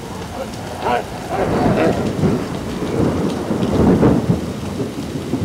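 A loud rumbling, rushing noise that swells and fades in irregular waves, growing louder about a second in.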